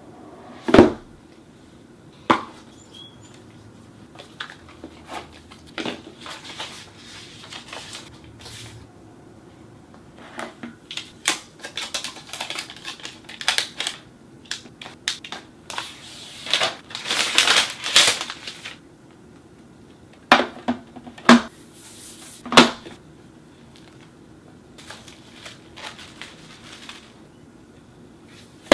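Unboxing sounds from a MacBook Pro's cardboard box and packaging: sharp knocks of the box and its contents set on a wooden table, and a long stretch of rustling, crinkling paper and plastic wrap in the middle, loudest about two-thirds through. A few more sharp knocks come about three-quarters through.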